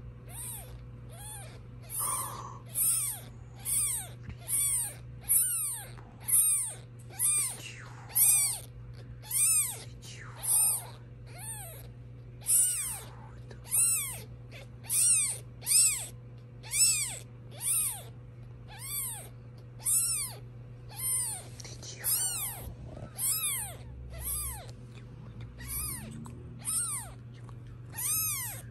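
Newborn black British Shorthair kitten mewing over and over: short, high-pitched squeaks that rise and fall in pitch, a bit more than one a second.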